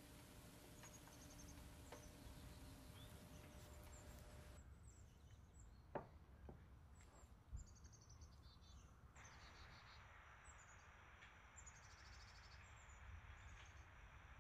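Faint bird chirps, short repeated calls, over quiet background noise, with two light clicks about a second and a half apart near the middle.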